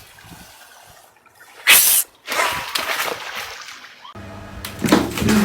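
A sudden loud splash of water about two seconds in, followed by a couple of seconds of rushing, splattering water. Music comes in abruptly near the end.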